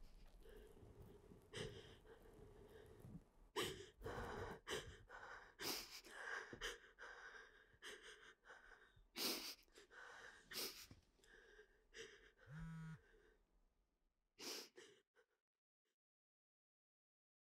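A person breathing in irregular, audible breaths and gasps, with one short voiced sound a little before the end, then dead silence for the last couple of seconds.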